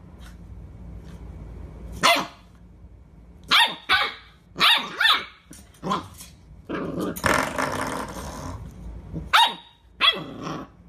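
A dog barking in short, sharp barks, about eight in all, with a rough growl lasting a couple of seconds around the middle.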